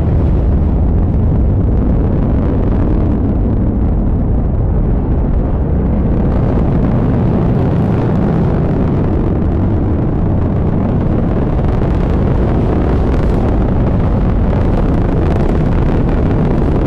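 Antares rocket at liftoff, its first stage's two RD-181 kerosene-oxygen engines firing: a loud, continuous low rumble. From about halfway it turns rougher, with crackling in the upper range.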